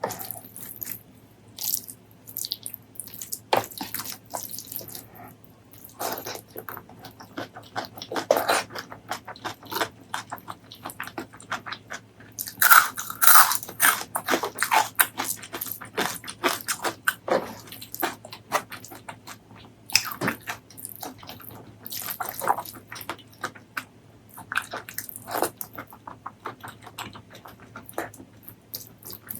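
Close-miked messy eating: wet chewing and lip-smacking in quick, irregular clicks, busiest and loudest about halfway through.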